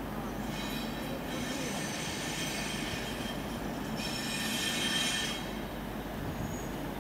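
Diesel locomotive running slowly round a curve, its wheels squealing high-pitched in three spells, the last and loudest at about four to five seconds in, over the steady low rumble of the locomotive.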